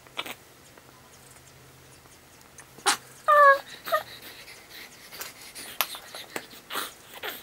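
Baby's short, slightly falling squeal a little over three seconds in, with a shorter one just after, amid scattered clicks and rustles from a diaper being changed.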